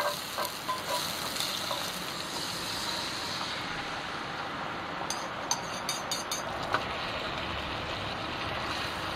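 Cooking at a portable gas stove: a spoon and a wooden spatula tapping and scraping in a pan of stew, with a quick run of small clicks about five seconds in, over a steady background hiss.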